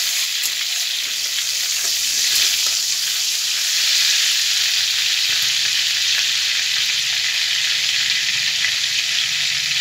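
Hot mustard oil sizzling steadily in a kadai as nigella seeds fry in it, a tempering (phoron). A spatula stirs and scrapes the pan briefly at the start.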